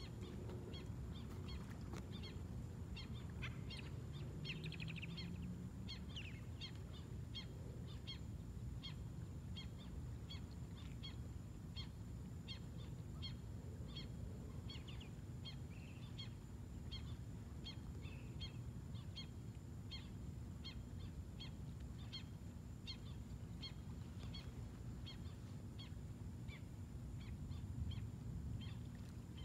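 A small animal's short, high chirps repeated evenly, about one and a half a second, over a low steady rumble.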